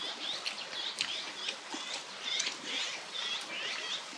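Small songbirds chirping, a quick run of short, high chirps repeating several times a second.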